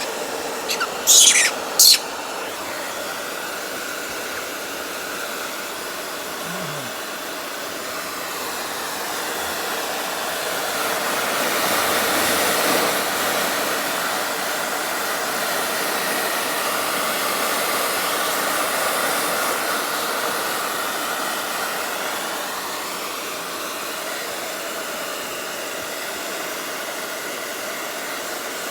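Hair dryer blowing with a steady rushing whoosh that grows louder through the middle and then eases off again. About a second in, two short shrill high-pitched sounds cut through it.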